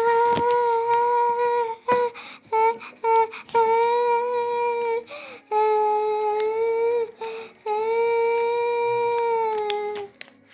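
A child humming long, steady high notes on one pitch, held about a second and a half to two and a half seconds each, with a few short broken notes in between.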